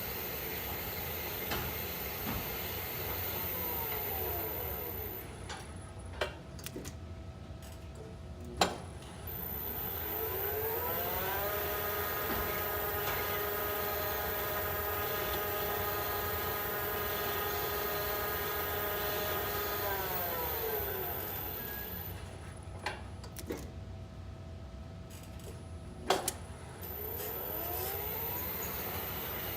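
Lift drive machinery whining in pitched tones that rise as the car starts off, hold steady while it travels, and fall as it slows to a stop, twice over. During each stop there are sharp clicks, the loudest one just before the car starts off again.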